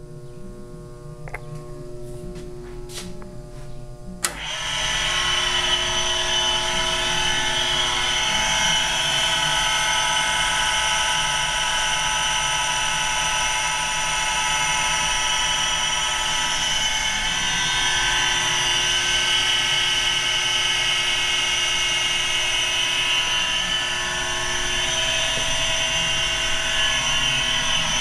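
Gorton #375-3 tool grinder: a few light clicks over a quiet hum, then a sharp click about four seconds in as it starts up into a loud, steady high whine that runs on evenly.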